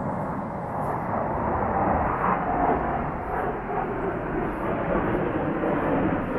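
F-16 fighter jets in flight, their jet engine noise a steady, loud rushing rumble.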